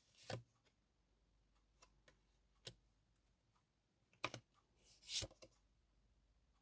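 Faint handling of tarot cards: a card sliding out near the start, a few light scattered clicks and taps, and another short sliding swish about five seconds in.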